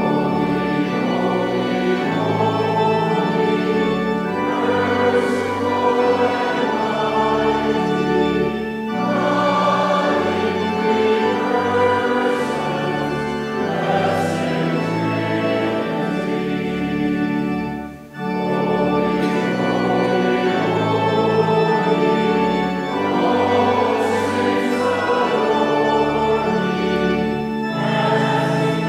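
A congregation singing a hymn with organ accompaniment, the notes held and moving line by line. There is one brief break about two-thirds of the way through.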